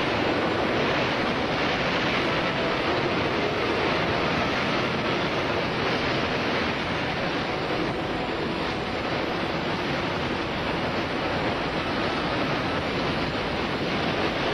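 Steady rushing wind and roar from a large tornado close by, picked up on a camcorder microphone.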